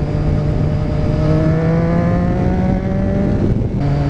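Motorcycle engine pulling under acceleration, its pitch climbing steadily, then a brief break near the end as the rider shifts up a gear, and it comes back at lower revs. Wind rushes over the microphone throughout.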